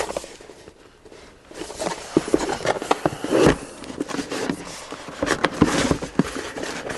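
A small cardboard product box being handled and opened by hand: irregular scraping, rubbing and light taps as the flap is worked open. A quieter spell about a second in, then a busy run of clicks and scrapes.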